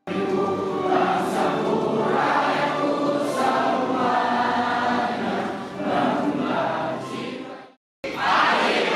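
A large group of voices singing together like a choir for almost eight seconds, then cutting off abruptly. About a second before the end, a crowd of voices starts up.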